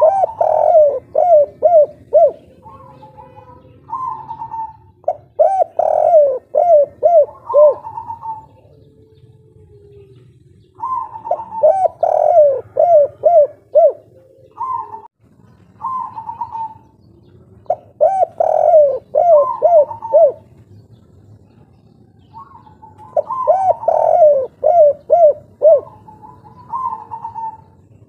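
Spotted dove of the 'kuk 3' song type cooing loudly. It gives five bouts of song, each a quick run of short rounded coos, with pauses of a couple of seconds between bouts.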